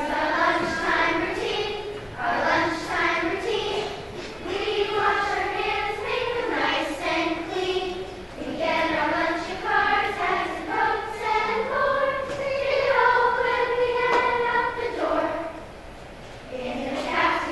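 Children's choir singing, phrase after phrase, with a brief pause near the end before the singing resumes.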